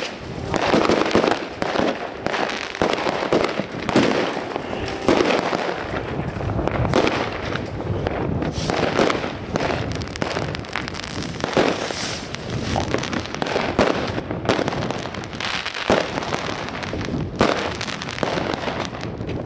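Aerial fireworks going off continuously: a dense run of bangs and crackling, with louder bangs every second or two.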